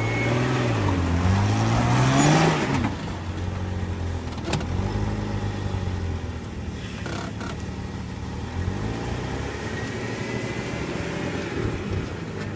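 Jeep Cherokee XJ engine revving under load as it is given throttle to bump up a rock ledge: the revs climb to a peak about two and a half seconds in and fall back, a sharp knock comes about four and a half seconds in, and the revs climb slowly again near the end.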